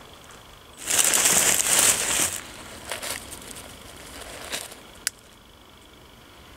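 Plastic bag and aluminium foil crinkling as they are handled. The crinkling is loudest for about a second and a half starting about a second in, with shorter rustles after it and one sharp click about five seconds in.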